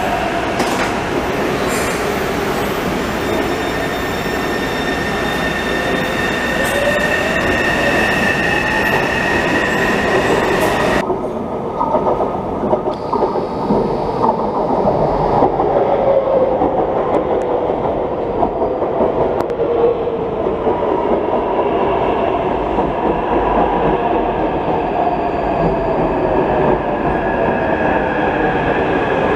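Taipei Metro electric trains. In the first part a train's traction motors whine, with a tone slowly rising in pitch as it pulls away. About 11 s in the sound changes abruptly, and another metro train runs into an elevated station over the rails, its motor whine falling in pitch as it slows to a stop.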